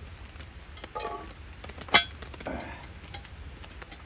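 Heavy lid of a cast-iron Dutch oven being fitted onto the pot: a metallic scrape about a second in, a sharp ringing clank of iron on iron about two seconds in, then a brief scrape as the lid settles.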